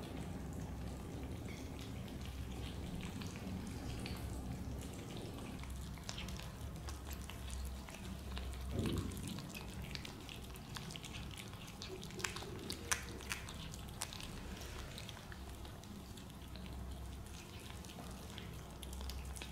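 Kittens chewing and lapping chunks of wet cat food from plates: faint wet smacking and small clicks over a low steady hum, with a few sharper clicks in the second half.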